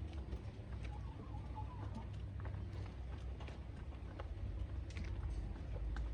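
Chickens feeding: scattered sharp pecking taps with soft clucking, over a steady low rumble.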